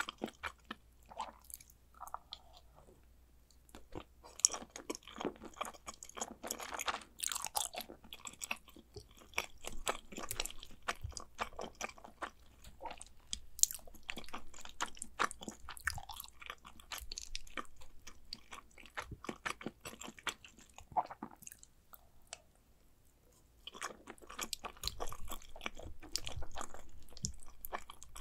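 Close-miked chewing of mac and cheese: soft, wet, sticky mouth sounds with frequent clicks, pausing briefly twice.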